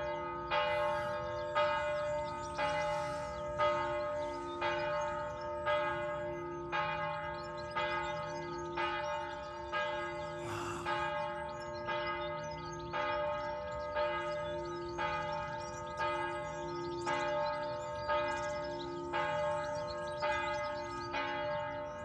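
Monastery church bells ringing, a stroke about every three-quarters of a second, each stroke ringing on into the next.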